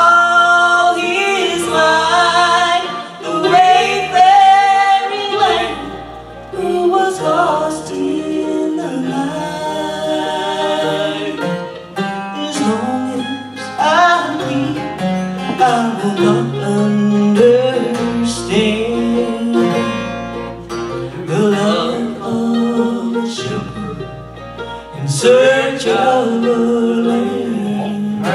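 Live bluegrass gospel band: a woman sings the lead over acoustic guitar, mandolin and electric bass, with the bass stepping through its notes underneath.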